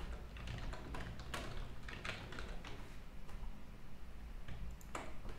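Computer keyboard and mouse clicks, soft scattered taps at an uneven pace, with a sharper click about five seconds in.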